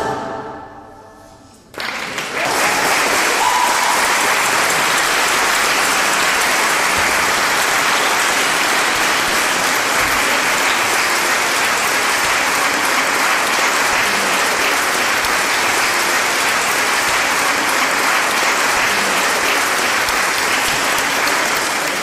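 The last notes of the music die away, and about two seconds in a large audience breaks into steady applause that carries on and tapers off near the end.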